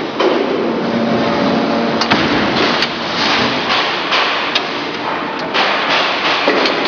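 Busy factory workshop noise: a steady din with frequent sharp knocks and clatter.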